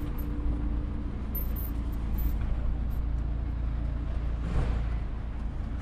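Steady city street traffic: low engine rumble from vehicles on the road, swelling briefly about four and a half seconds in.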